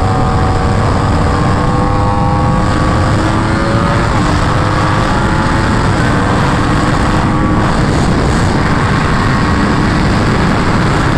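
Yamaha R1 sport bike's inline-four engine running at highway cruise, its note climbing slowly with a couple of small dips as the throttle eases, under heavy wind rush on the microphone.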